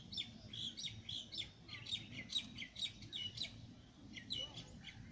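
A songbird singing a quick run of short, clear chirps, about four a second, that breaks off past the middle and picks up again briefly near the end.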